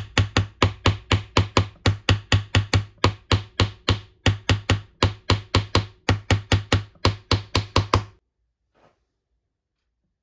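Small hammer tapping rapidly on the copper pins of a wooden knife handle, about four even blows a second with two brief pauses, stopping about eight seconds in: the pins are being peened over to rivet the handle scales to the blade's tang.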